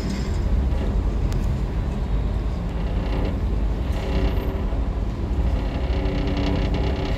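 Engines of an Emerald-class Sydney ferry running steadily under way as it pulls away from the wharf, heard on board: a low drone with several held hum tones.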